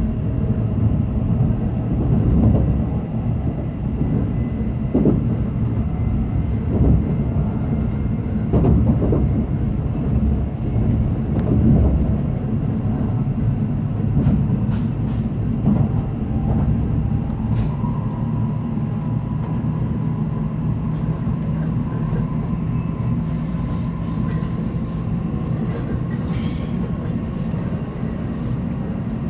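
Inside the passenger car of an N700-series Shinkansen running at speed: a steady low rumble of wheels and running gear, with a few short knocks in the first dozen seconds. From a little past halfway a faint whine climbs slightly in pitch as the train picks up speed.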